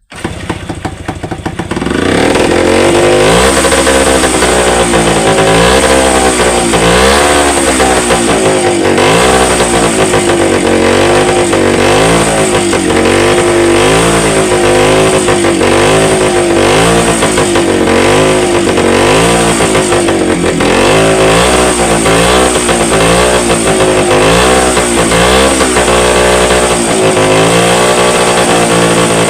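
Motorcycle engine catching and then revved up and down over and over by hand on the throttle. The owner has been hearing a scraping from it and suspects the ignition (coil).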